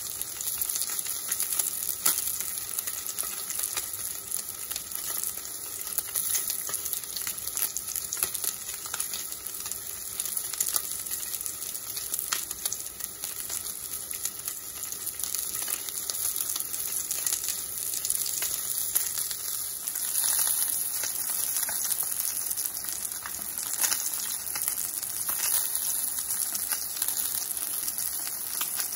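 Salmon fillet frying in oil in a cast-iron skillet: a steady sizzling hiss with scattered crackling pops.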